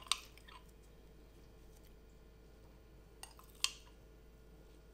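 Metal spoon clinking against a glass mason jar while scooping out thick gel: a sharp click at the start with a few soft scrapes after it, then a light knock and a ringing clink about three and a half seconds in.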